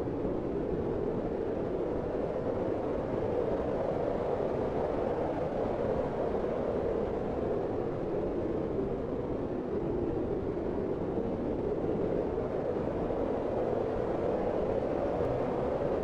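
Steady, smooth wind blowing: a soft, mid-pitched whoosh that swells and eases slowly.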